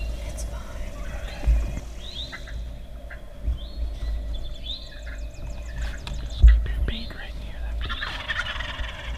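Wild turkey gobblers gobbling repeatedly, with a dense rattling gobble near the end. A few low thumps, the loudest about six and a half seconds in.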